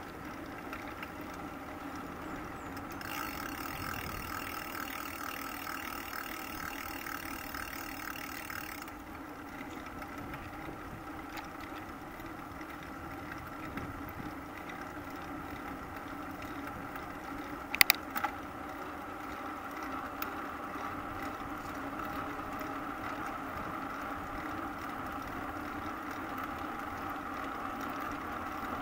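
Steady riding noise of a bicycle rolling along a smooth asphalt bike path: an even hum with a constant whine in it. A single sharp click about eighteen seconds in.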